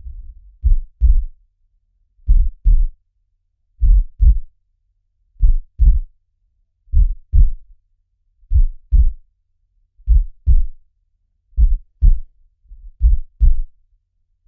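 Heartbeat, a low double thump (lub-dub) repeating steadily about every one and a half seconds, nine beats in all.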